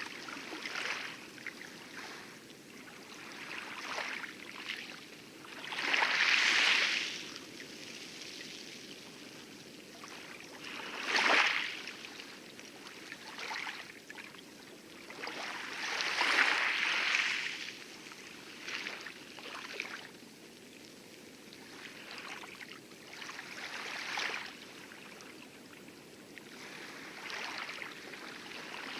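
Light lagoon waves lapping and splashing on coral in irregular swashes, the biggest about six, eleven and sixteen seconds in, over a steady low wash of distant heavy surf.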